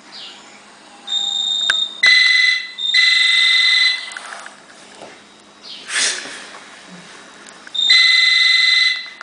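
A person snoring with a high, steady whistle that sounds in several bursts of up to about a second, irregularly spaced, with a short noisy breath about six seconds in.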